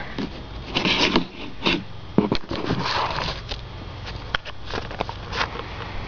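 Handling noise from a perforated metal hard drive caddy being picked up, turned and set down: scattered scrapes and small sharp clicks.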